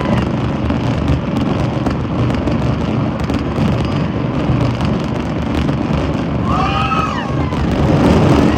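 Fireworks display going off in a dense, continuous barrage: overlapping deep booms with sharp crackles on top. Voices rise over it near the end.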